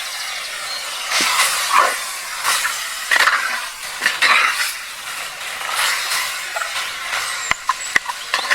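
Food frying and sizzling in a pan while being stirred, a spoon scraping through it at uneven intervals, with a few sharp clinks near the end.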